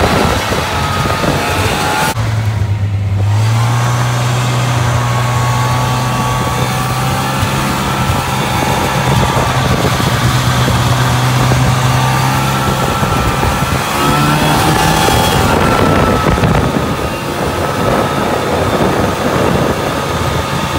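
Ski-Doo snowmobile engine running while the machine is ridden, with its note rising and falling as the throttle changes, over a steady rush of noise. The sled is on a test ride with its carburetor just refitted.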